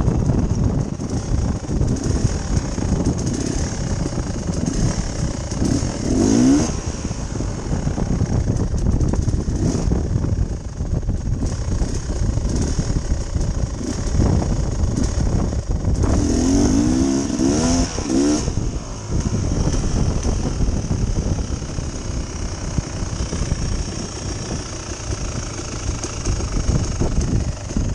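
Dirt bike engine running hard on a trail ride, its revs climbing sharply about six seconds in and again in a longer rise around the middle.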